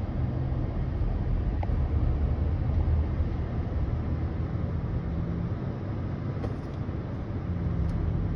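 Low, steady rumble of a vehicle engine, with faint steady tones coming and going in it and no siren wailing.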